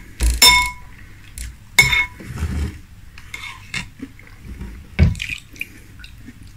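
Metal spoon clinking against a glass bowl of cereal and milk, the strikes ringing briefly, loudest in the first two seconds. Between them the spoon scrapes and stirs through the milk, with a sharp knock about five seconds in.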